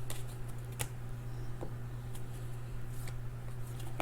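Trading cards being handled and flipped through, with a few light clicks of card stock, over a steady low electrical hum.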